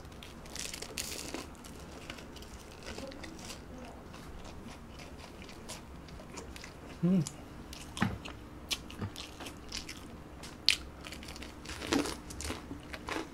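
Close-up crunching bites and chewing of oven-baked, crisp shrimp toast (menbosha), with sharper crunches in the second half.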